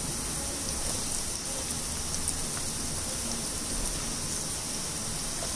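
Diced yellow bell pepper, spring onion and garlic sizzling in hot oil in a frying pan: a steady, even hiss with a few faint pops.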